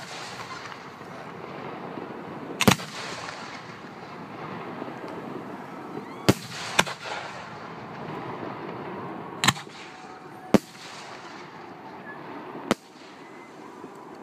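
Aerial fireworks shells bursting in the sky: six sharp bangs, one to three seconds apart, over a steady background hiss.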